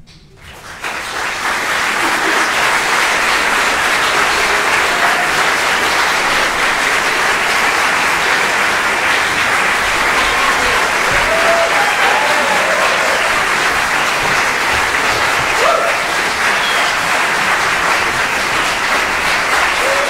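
Theatre audience applauding at a curtain call. The clapping starts suddenly in the first second, swells within a couple of seconds and then holds steady, with a few voices calling out over it partway through.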